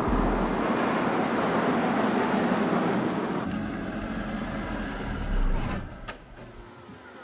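Ford SUV driving up a street, a steady rush of tyre and engine noise that fades out about six seconds in to a quiet background.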